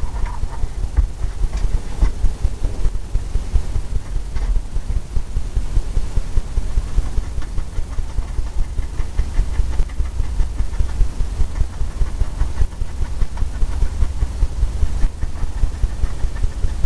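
Oil-paint brush dabbing and scrubbing on a stretched canvas, a dense, uneven run of rapid low thuds.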